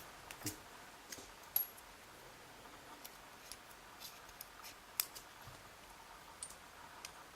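About ten faint, scattered metallic clicks and taps from a Schlage Everest lock cylinder being worked with a shim to release its plug.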